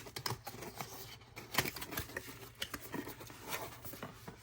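A product box being opened by hand: scattered light clicks, taps and scrapes of cardboard and packaging being handled.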